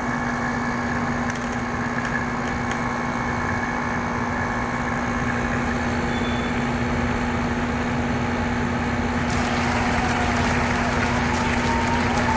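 Window-type air conditioner running, its fan motor on a freshly replaced bearing spinning the blower and condenser fan with a steady hum. It runs smoothly, without the squeal of the worn bearing. A louder airy rush joins about nine seconds in.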